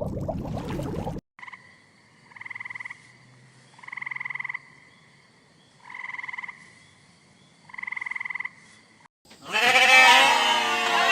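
A short burst of noise, then four evenly spaced croaking calls, each a rapid pulsing about two-thirds of a second long. About nine seconds in, loud bleating from several animals calling over one another takes over.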